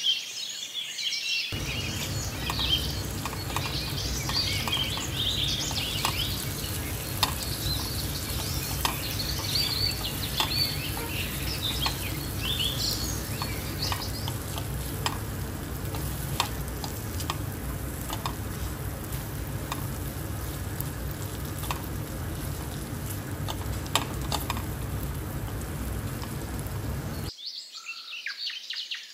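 Chicken frying and sizzling in a pan while being stirred, with irregular clicks of the spoon against the pan. Birds chirp briefly at the start and again near the end, when the frying sound cuts off.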